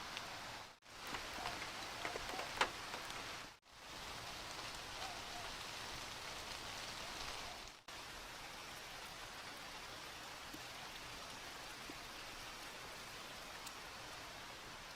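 Typhoon rain falling steadily, an even hiss with a few sharper drop taps in the first three seconds. The sound cuts out briefly three times.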